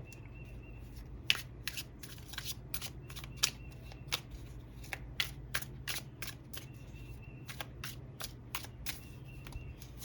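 Tarot cards being shuffled by hand: a long run of irregular sharp card flicks and riffles, over a steady low hum.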